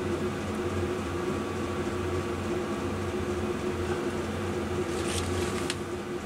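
A steady machine hum, like a small electric motor or fan running, with a few light clicks about five seconds in.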